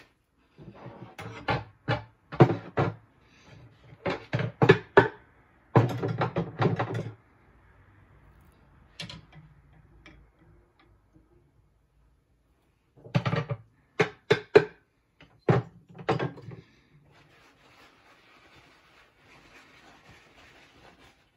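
Hand sanding of a small rusty steel bench block: quick rubbing strokes come in bursts of several to a second, with pauses between them, and faint rubbing near the end.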